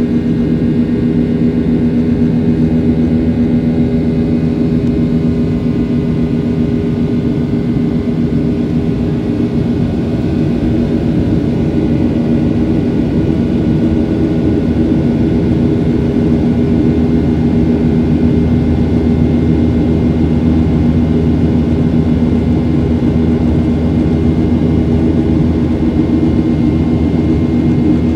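Steady cabin drone of a jet airliner in flight: engine hum and rushing airflow, with a faint high whine.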